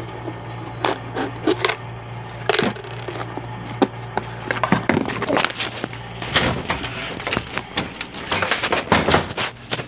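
Coins rattling and clicking inside a plastic coin bank as it is shaken and handled, in irregular clatters that come thicker in the second half, over a steady low hum.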